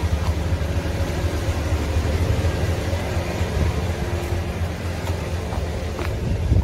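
Heavy truck's diesel engine idling with a steady low rumble.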